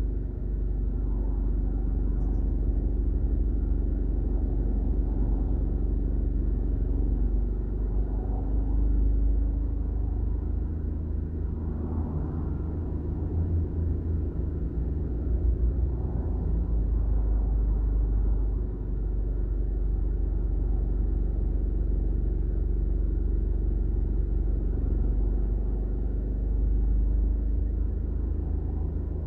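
Road traffic on a multi-lane road: cars passing now and then over a steady low rumble.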